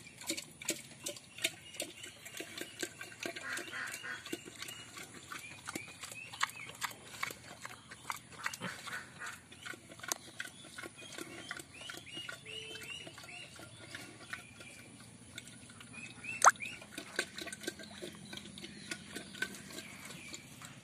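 Pig eating feed from a metal pot: irregular chomping and slurping with frequent clicks and knocks as its snout works against the pot, and one sharp knock about three-quarters through. Faint short high chirps of a small bird come now and then.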